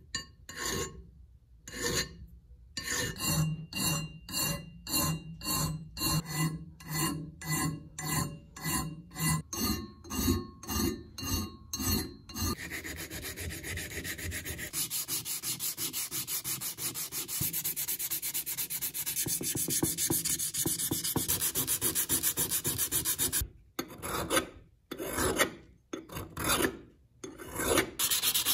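Hand file rasping across the cast-metal body of a 1940s Bridge Tool Company hand grinder, taking off casting marks in even strokes, about three every two seconds. About twelve seconds in it gives way to fast, continuous scrubbing with 150-grit sandpaper. Near the end a few more file strokes on the cap are followed by sanding again.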